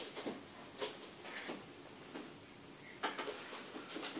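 A few soft, irregular clicks and rustles, with no steady hum: handling noise of the phone filming a spinning metal fidget spinner.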